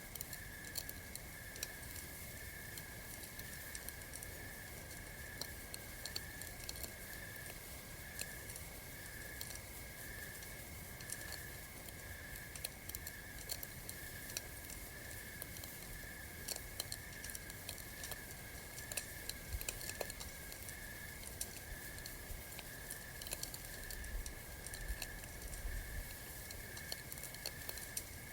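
Campfire crackling with scattered sharp pops, over a steady pulsing chirp of night insects, about two chirps a second.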